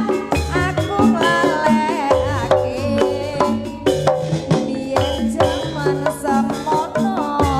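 Jaranan accompaniment music: drums and gamelan percussion in a steady rhythm under a sliding, bending melody line, played loud through a sound system.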